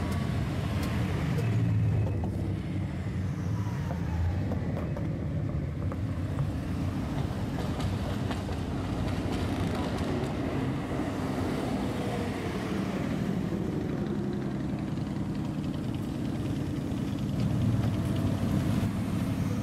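Lowered, modified cars with loud aftermarket exhausts driving slowly past one after another, their engines rumbling. It swells twice, about two seconds in and again near the end, and an engine's pitch glides up and back down around the middle.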